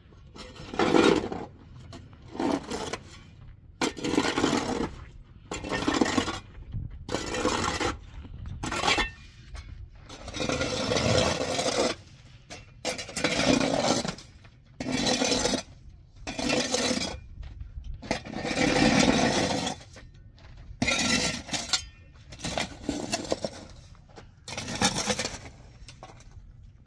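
Repeated scraping strokes, about one every second or so, with some clinking.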